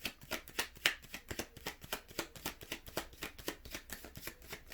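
Tarot cards being shuffled by hand: a quick run of soft card slaps and flicks, several a second, that thins out near the end.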